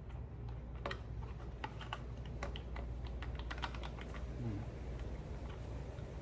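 Scattered light clicks and taps of small carburetor parts, gaskets and the auto-choke piece, being handled and pulled back off the mower's intake, most of them in the first four seconds, over a low steady hum.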